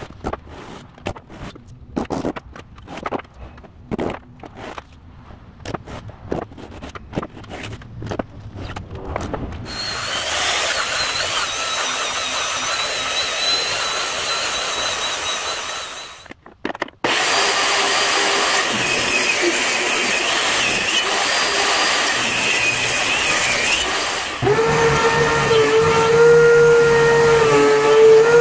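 Irregular sharp knocks and taps for the first several seconds. About ten seconds in, a handheld electric belt sander runs on the wood box with a steady high whine; after a brief break the machine noise goes on. Near the end, a DeWalt benchtop thickness planer starts up with a steady pitched drone as a board is fed into it.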